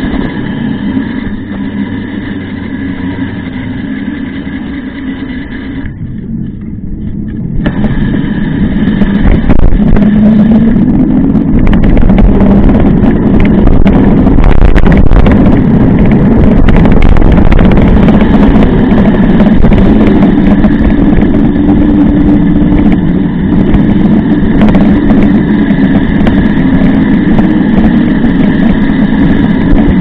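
Wind buffeting the microphone and tyre noise from a mountain bike riding on a paved road, heard on an action camera. It is a steady, loud roar that grows louder about ten seconds in and then holds.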